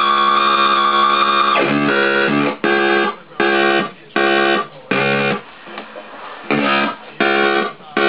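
Joystick-controlled synthesizer playing a held tone, rich in overtones. About one and a half seconds in it breaks into short, chopped notes, each about half a second long, with brief gaps between them.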